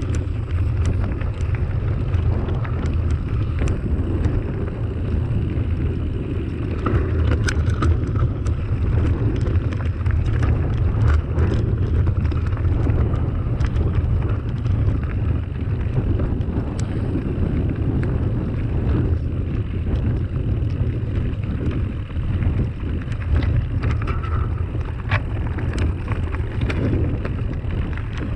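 Mountain bike rolling over a loose, stony dirt track, heard from the bike. A steady low rumble of tyres on gravel and wind on the microphone, with frequent small clicks and rattles from stones and the bike.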